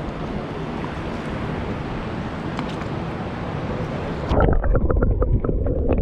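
Wind on the microphone over shallow surf at the water's edge. About four seconds in, the microphone goes under the water: the sound turns suddenly muffled and heavier in the low end, with many small clicks and gurgles of water and bubbles.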